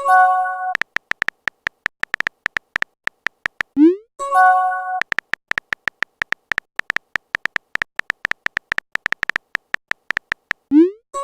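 Electronic chat sound effects: long runs of short, quick high beeps like typing blips, broken twice by a rising swoop and a bright multi-note chime, about as a message pops up.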